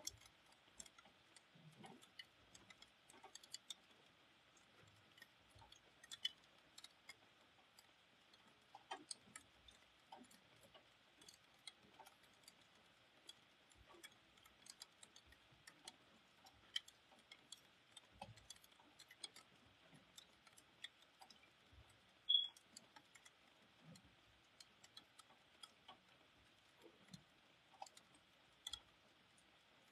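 Faint, irregular ticking of raindrops dripping onto hard surfaces, over a soft steady hiss of light rain. One tick about two-thirds through is sharper than the rest.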